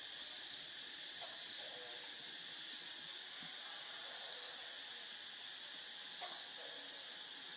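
Steady, high-pitched chorus of insects, with a few faint short calls from small animals mixed in. No engine rumble from the high-flying airliner is audible.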